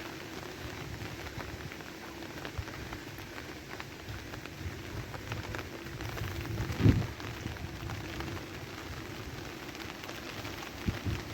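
Steady rain falling, with many small drops pattering and a faint low hum underneath. A single loud dull thump comes about seven seconds in, with a couple of lighter ones near the end.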